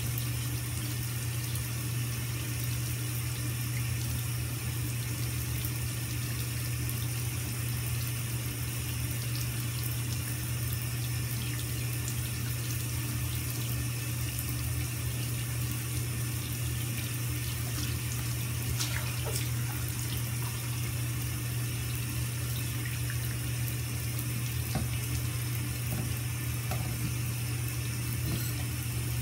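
Water running steadily in a bathtub and into its drain, over a steady low hum.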